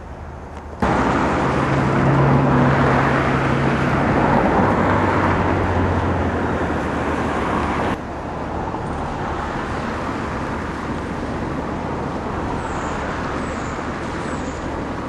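Steady road traffic noise, starting suddenly about a second in, with a vehicle engine hum passing close and dropping in pitch a few seconds later.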